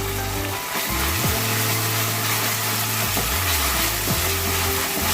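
Background music with a steady bass line over the sizzle of ginger-garlic paste frying in hot oil in a kadhai.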